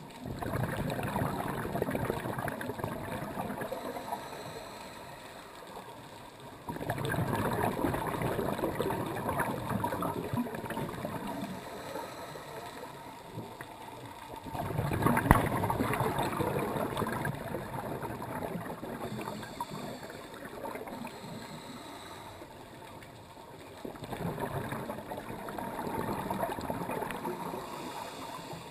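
Scuba diver's exhaled bubbles from the regulator, heard underwater: four long bubbling swells several seconds apart, with a quieter hiss of water noise between them.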